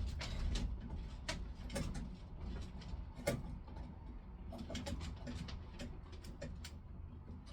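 Irregular light clicks and small metallic taps: hand work on a fire alarm panel enclosure and its screws as it is fitted to the wall.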